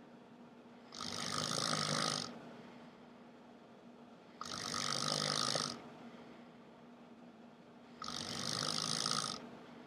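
A sleeping man snoring: three long snores, each lasting over a second, coming about three and a half seconds apart.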